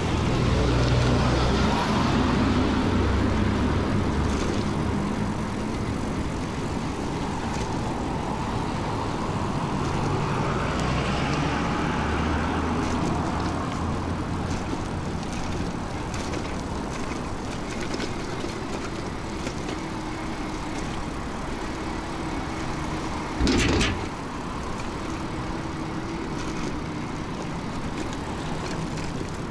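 Riding noise on an e-bike with a geared hub motor: wind rumble on the microphone and road noise, heavy at first, with a swell of noise that rises and fades around ten seconds in. A faint steady whine runs through the second half, and one short, sharp knock about 23 seconds in is the loudest sound.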